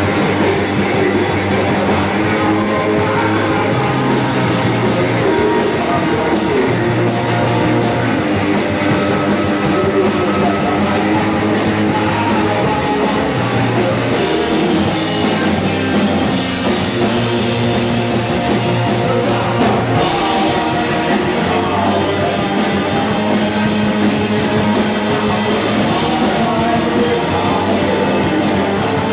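Live rock band playing loudly: electric guitar, bass guitar and a drum kit together, with a steady beat.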